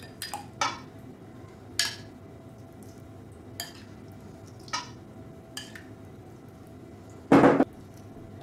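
A metal spoon clinking against a glass bowl and a stainless steel mixing bowl while marinade is spooned onto raw chicken: a handful of light, separate clinks, then one louder clatter near the end.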